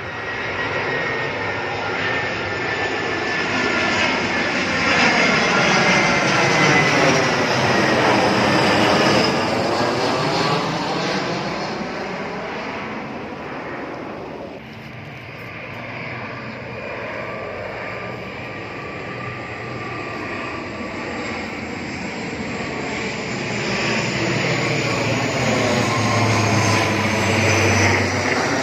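Airplane flying past overhead: a steady rushing engine noise with a thin high whine that slides slowly down in pitch. It swells loud twice, with a dip in between.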